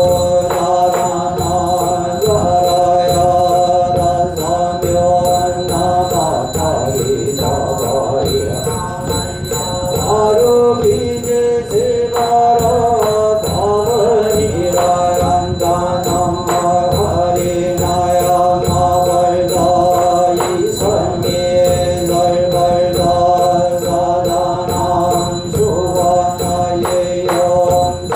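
Korean Buddhist yeombul chanting: a monk and the assembly chant together on sustained sung pitches, over regularly repeating percussion strikes.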